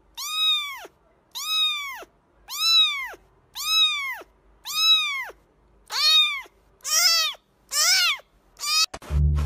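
Kitten meowing over and over, about one high-pitched mew a second, each rising then falling in pitch; the last few come shorter and closer together.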